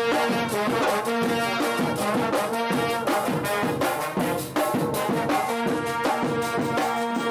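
Marching band playing in the stands: brass horns sounding a tune in held and changing notes, with bass drums and other drums beating under them.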